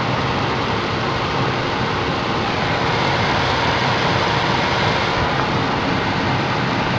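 Ford Focus cabin blower fan, freshly replaced, running at a higher speed setting: a steady rush of air through the dashboard vents.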